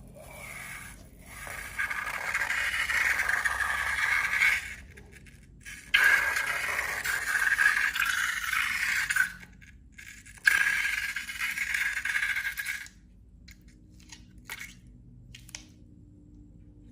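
Three long scraping sounds, each lasting a few seconds with short gaps between them, followed by a few faint clicks near the end.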